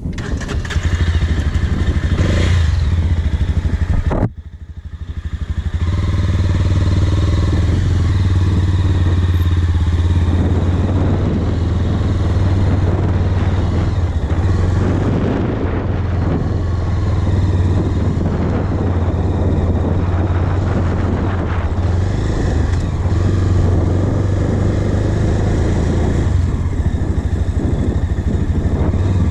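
Motorcycle engine running steadily while riding over grass and a dirt track. The sound drops away abruptly for a moment about four seconds in, then picks up again.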